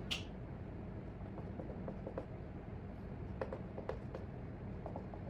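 Dry-erase marker writing on a whiteboard: short faint strokes and taps, over a steady low room hum.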